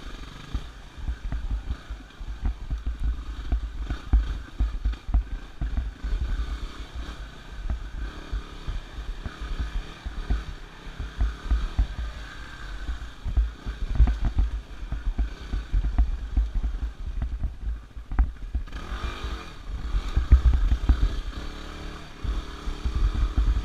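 Yamaha WR250R's 250 cc single-cylinder four-stroke engine running as the dirt bike rides a bumpy wooded trail, mixed with heavy low knocking and buffeting on the microphone. The engine revs up and back down briefly about three quarters of the way through.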